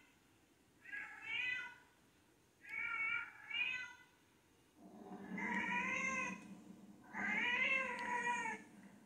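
A cat screaming, played through a television's speakers: a few short meowing calls, then two long, louder drawn-out yowls from about five seconds in.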